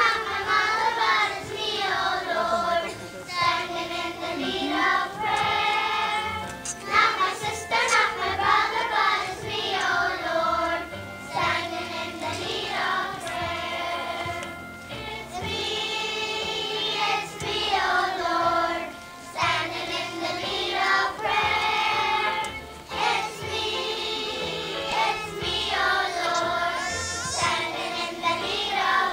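A group of young children singing together in phrases, as a small choir.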